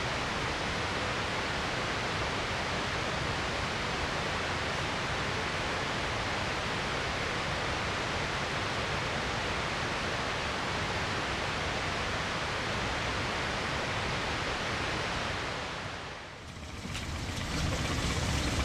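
Steady rushing of water that fades out about sixteen seconds in, followed by a low rumble starting near the end.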